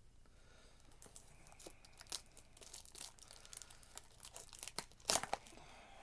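Packaging of a small blind-box toy being torn open and handled: scattered crinkling and tearing, with a louder rip about five seconds in.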